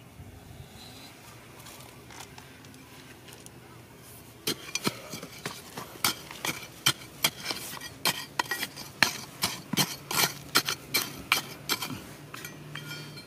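A narrow metal digging tool chopping into dry, stony soil and loose rock chips, with sharp scraping clinks. The strikes start about four seconds in and come quickly and irregularly, roughly three a second, stopping shortly before the end.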